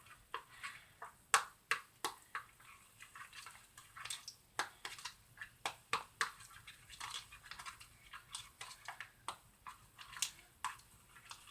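Homemade glue-and-salt slime being stirred with a pen in a measuring cup: soft, irregular sticky squelches and clicks, a few each second.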